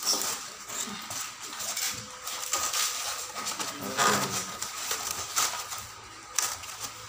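Styrofoam packing sheet scraping and squeaking against the cardboard box as it is laid in and pressed down by hand, in several uneven rubs and knocks.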